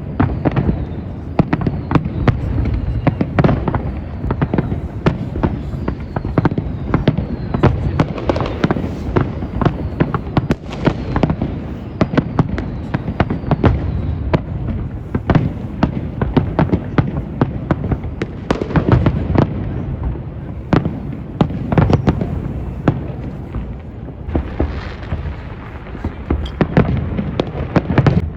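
New Year fireworks going off many at a time: a dense, continuous barrage of sharp cracks and bangs over a steady low rumble of more distant bursts.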